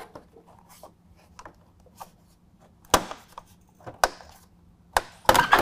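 Plastic trim clips snapping loose as a long plastic trim strip is pulled off the front of a Ford F-150: sharp snaps about a second apart, then a quick run of snaps near the end.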